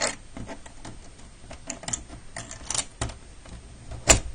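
Key clicking and rattling in the lock of an Esser by Honeywell manual fire alarm call point as it is worked to open the cover, with one sharp loud click near the end.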